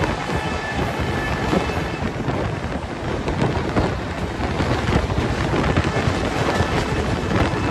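Express passenger train running at high speed, heard from on board: a loud, steady rumble and rush of air with constant rattling and clatter from the wheels and coach.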